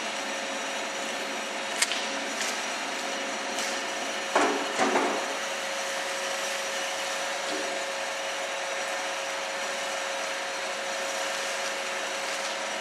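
WS 15 bench drill running: its 0.75 kW electric motor and spindle give a steady hum with a constant whine. There are a few sharp clicks in the first few seconds and a brief louder clatter about four and a half seconds in.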